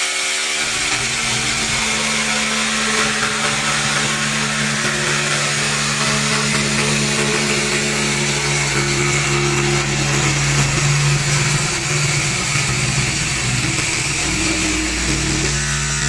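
21V cordless drill driving a reciprocating jigsaw attachment, sawing through a plywood sheet. The motor runs steadily at one speed while the blade saws continuously through the wood.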